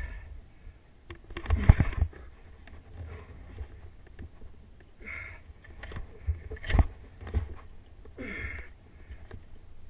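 Skis scraping and swishing on snow through a series of mogul turns, a swish every second or two, the loudest about two seconds in with sharp knocks as the skis hit the bumps. A low wind rumble on the microphone runs underneath.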